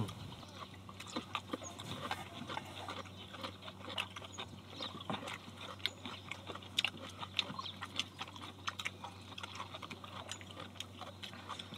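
Close-miked eating sounds: chewing and mouth noises, with chopsticks clicking and scraping against steel bowls and a cast-iron cauldron-lid griddle in many short, irregular ticks.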